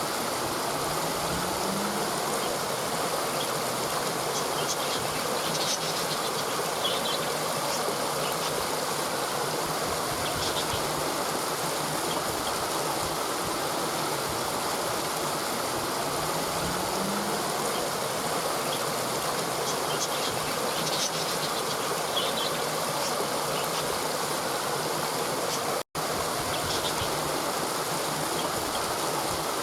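Steady rushing of a waterfall, an even full-range hiss of falling water. A faint low rising tone shows up twice, and the sound cuts out for a split second about 26 seconds in.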